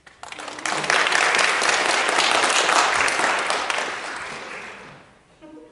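Audience applauding: the clapping builds up within the first second, holds steady, then fades out over the last couple of seconds.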